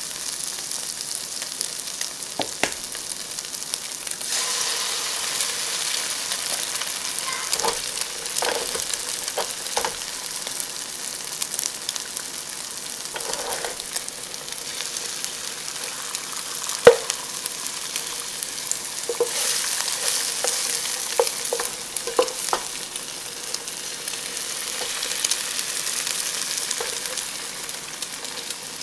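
Chinese sausage sizzling in hot oil in a wok, with a spatula scraping and clicking against the pan; the single loudest knock comes about 17 seconds in. An egg cracked into the pan joins the frying, and the sizzle grows louder about four seconds in.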